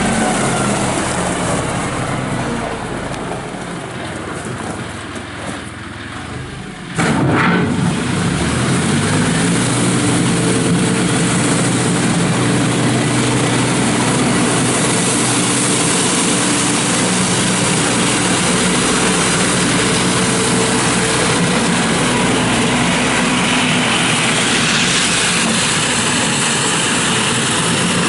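John Deere 5045D tractor's turbo diesel engine running. About seven seconds in there is a sharp knock and the engine gets louder, its pitch rising a little before it settles into a steady run.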